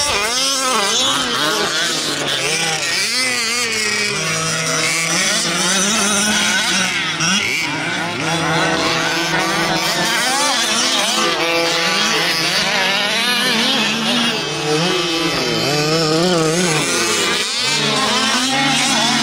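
Several fifth-scale gas RC buggies racing, their small two-stroke engines revving up and down at different pitches, overlapping.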